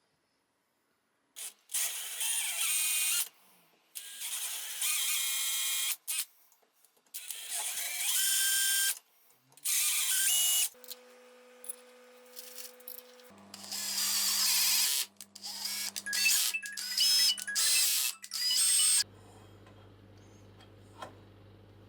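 A power tool working metal in short bursts of a second or two each, high-pitched and whining, with a steady low electrical hum in the gaps from about halfway through.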